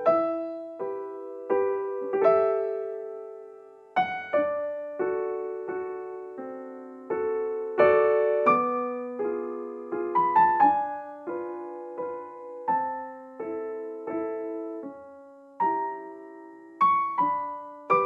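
Background piano music: slow, gentle notes and chords, each struck and left to ring and fade before the next.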